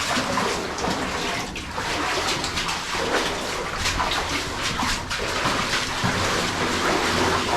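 Water splashing and sloshing in uneven strokes, typical of someone wading through shallow water along a draining mine adit.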